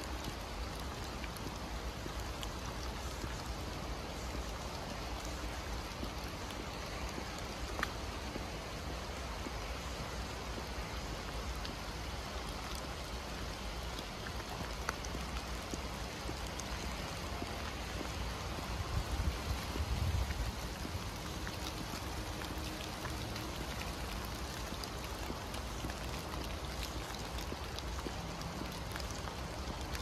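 Heavy rain falling steadily in a forest, an even hiss with scattered single drops ticking close by. A brief low rumble about two-thirds through is the loudest moment.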